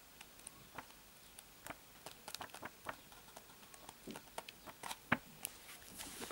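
Pages of a thick comic-book omnibus being flipped one after another: a quiet, irregular run of paper flicks and rustles that grows busier after about two seconds.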